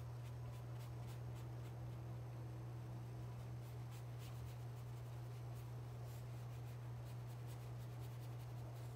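Faint strokes of a paintbrush on stretched canvas, with a few light scratches now and then, over a steady low hum.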